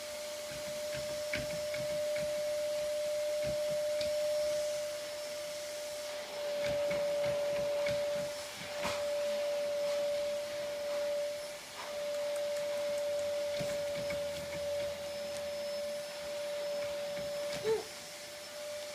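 A steady single-pitched whine or hum, broken off briefly a few times, with scattered light knocks and a short louder sound near the end.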